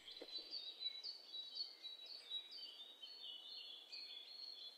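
Faint chirping of small birds: many short, high, falling notes repeated quickly and overlapping, with one faint tick near the start.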